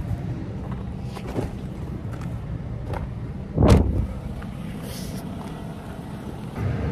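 Steady low rumble of a moving vehicle, with one loud thump about three and a half seconds in.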